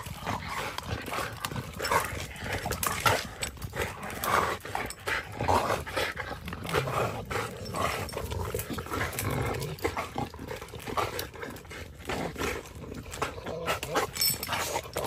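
Dogs tussling over a wooden stick, chewing and tugging at it, with many short cracks and snaps from the wood and low growls.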